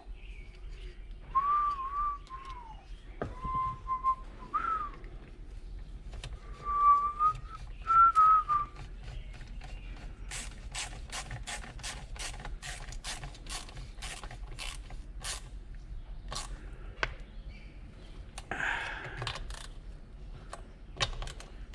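A person whistling a few short wavering phrases of a tune while working, followed by a run of sharp clicks, about three a second, from handling small parts or a tool.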